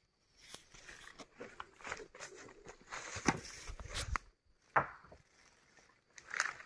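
Footsteps crunching and rustling through sawdust, brush and leaves, with a few louder knocks near the middle.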